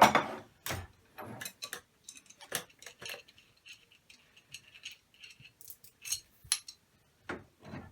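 Metal reloading-press parts knocking and clinking as the handle is taken out and handled. A sharp knock comes right at the start, followed by scattered light clinks and clicks.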